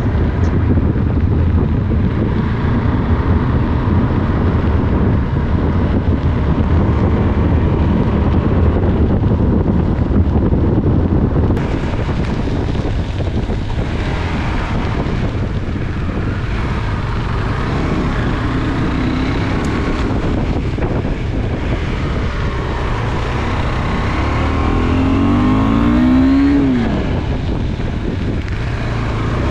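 KTM 390 Adventure's single-cylinder engine running at low road speed, over steady tyre and wind noise on a wet road. Near the end a short note rises and falls in pitch.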